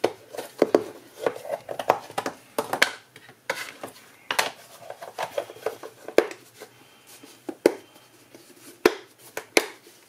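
Plastic storage box being closed and handled: a quick run of sharp plastic clicks and knocks in the first few seconds, then single knocks every second or so.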